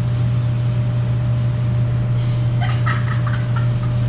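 Car engine running steadily, a low even drone, in a car that has just had its motor refitted and is being taken for a test drive.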